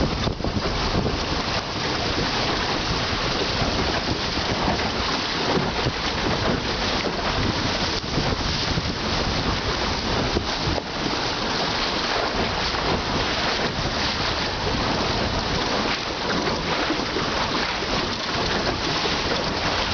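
Steady rush of wind on the microphone over water hissing and splashing along the hull of a Drascombe Lugger sailing in a 10–15 knot breeze.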